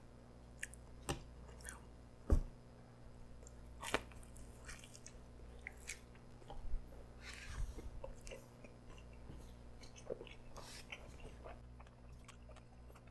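Close-miked chewing of a pretzel dog with a baked-on cheese crust: scattered wet mouth clicks and small crunches, the sharpest about two and a half seconds in.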